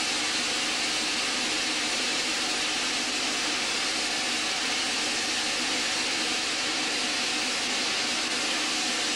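Steam locomotive standing at rest, blowing off steam with a loud, steady hiss.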